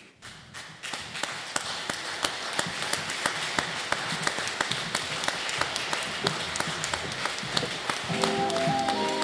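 Audience applause from a crowd in a hall, starting about a second in and keeping up steadily. Near the end, music with a melody of held notes begins over the clapping.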